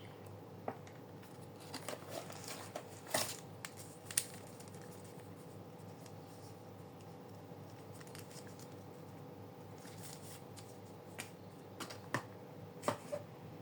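Hands handling packaging and small plastic items: scattered clicks, taps and scrapes in two bunches, one in the first four seconds and one near the end, over a faint steady hum.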